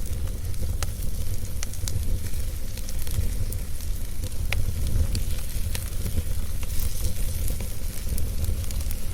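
Wood fire burning in a fireplace: a steady low rumble and hiss of flames with scattered sharp crackles and pops, roughly one or two a second.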